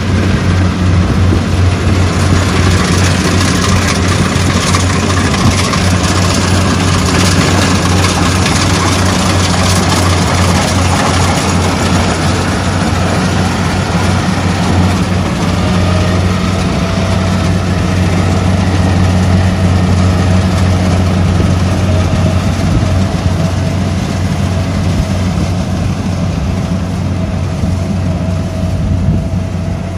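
Kubota tracked rice combine harvester running steadily while cutting and threshing: a constant low engine note under a broad mechanical rush from the working machinery. A faint thin whine joins about halfway through.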